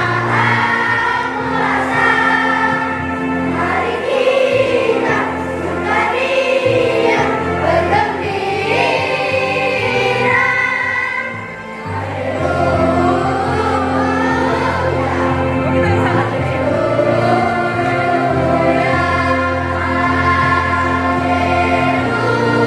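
Children's choir singing a hymn to electronic keyboard accompaniment, with steady sustained bass notes underneath and a brief lull between phrases about halfway.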